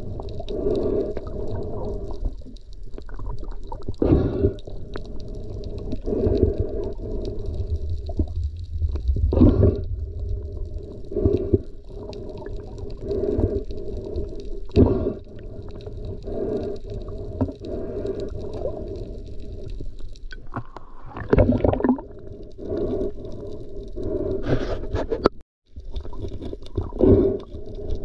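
Muffled underwater noise picked up through an action-camera housing: water rushing and rumbling, swelling in repeated surges every second or two as the diver moves, with a brief dropout near the end.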